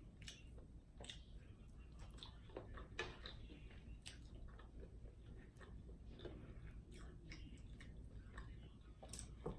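A person chewing French fries: faint, irregular soft crunches and wet mouth clicks.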